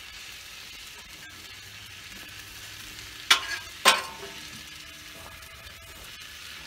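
Shaved steak, peppers and onions sizzling steadily on a Blackstone flat-top griddle, with two sharp clanks of metal spatulas against the steel griddle about three and four seconds in.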